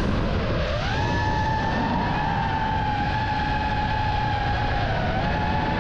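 Armattan Beaver FPV quadcopter's motors and propellers whining at a high pitch over a rush of air. The pitch sinks and climbs back within the first second, then holds steady with a slight dip near the end.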